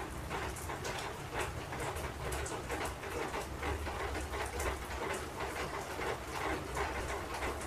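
Rain falling steadily, with scattered drips.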